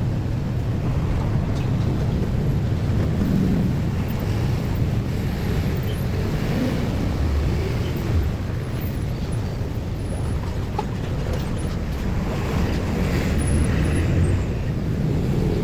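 Steady low rumble of vehicles, with wind-like noise on the microphone.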